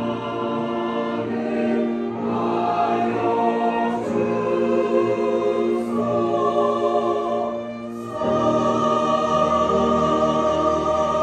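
Church choir singing in Korean, with piano, violin and cello. It sings sustained chords in phrases that break about every two seconds, then holds one long chord from about eight seconds in.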